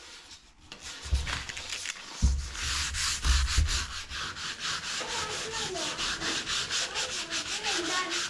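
Sandpaper rubbed by hand over a wooden drawer in quick back-and-forth strokes, rasping off old white paint. The strokes start about a second in, with a few dull bumps early on, and settle into an even, fast rhythm.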